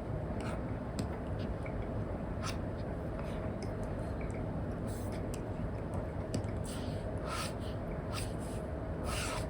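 Apple Pencil tip scratching and tapping on an iPad fitted with a paper-like matte screen protector, in short strokes, a few longer strokes near the end, over a steady low rushing noise.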